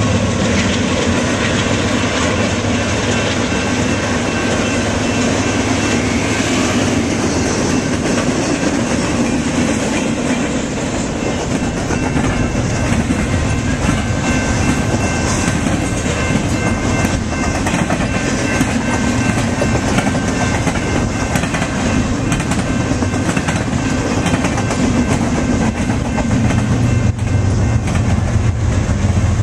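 BNSF double-stack container cars rolling past at speed, with a steady rumble and the clatter of wheels over the rails and crossing. A grade-crossing bell rings steadily over it.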